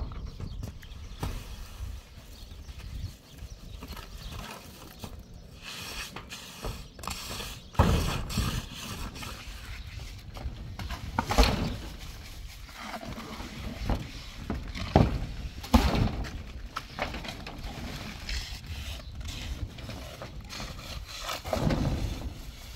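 Irregular knocks, scrapes and thuds of hands-on roof work: wet cement being tipped and worked with a trowel, and people moving on corrugated metal roof sheeting. A few sharper knocks stand out through the middle.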